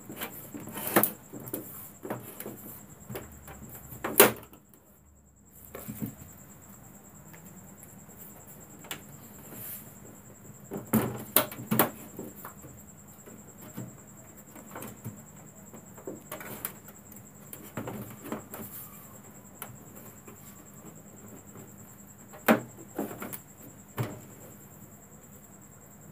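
Scattered clicks and knocks of a screwdriver and the plastic back cover of a CRT television being handled as the cover's screws are put back in, with the sharpest taps about a second in, around four seconds, near eleven to twelve seconds and about twenty-two seconds.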